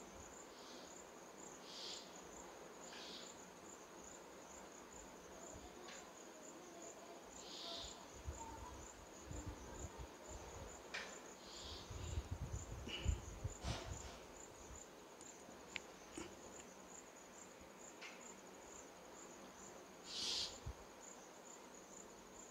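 An insect trills steadily in a fast, even, high-pitched pulse. Over it come faint scattered ticks and rustles of a razor blade and fingers working a mango stem, bumping more around the middle.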